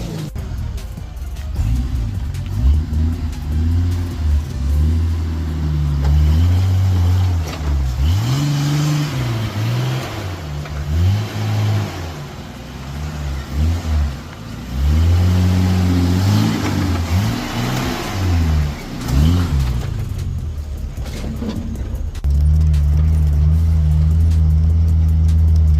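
Off-road 4x4's engine revving up and down over and over, then holding a steady drone for the last few seconds.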